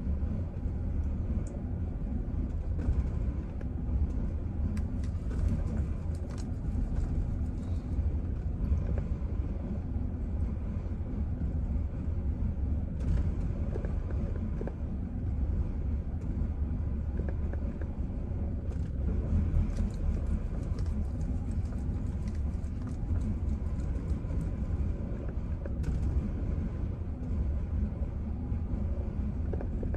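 Chevrolet Silverado engine running at a very rough idle, a steady low rumble with an uneven beat and occasional faint ticks.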